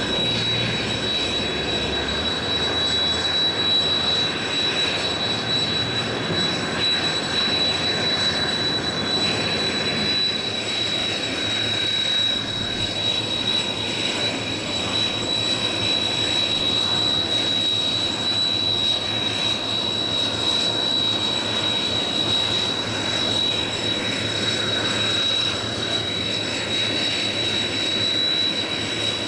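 Kawasaki T-4's jet engines running steadily on the ground, a constant high-pitched whine over a rushing roar.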